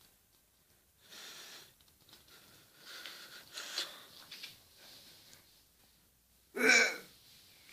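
A person's voice: faint scattered noisy sounds, then one short, loud voiced cry a second before the end.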